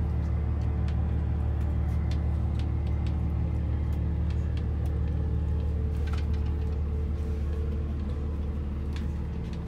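Boat's inboard engine running steadily, a deep even hum that grows a little quieter near the end.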